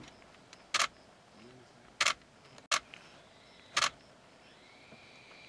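Camera shutter firing four single frames, sharp clicks spaced irregularly over about three seconds.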